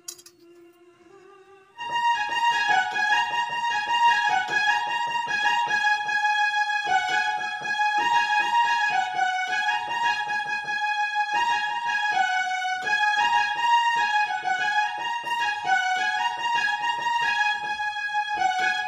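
Portable electronic keyboard playing a melody of held notes over a rhythmic accompaniment, starting about two seconds in.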